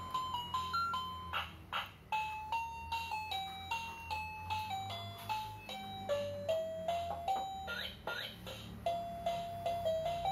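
A simple electronic melody of short, bell-like chiming notes stepping up and down at a brisk, even pace, with a few sharp ticks about one and a half to two seconds in.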